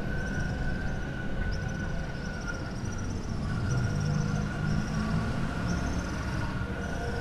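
Evening city street ambience: a low rumble of traffic under a steady high tone, with short high chirps that fall in pitch, repeating roughly once a second.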